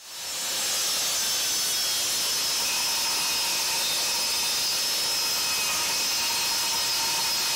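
Table saw ripping a wooden board: a steady cutting hiss with a faint high whine, fading in at the start.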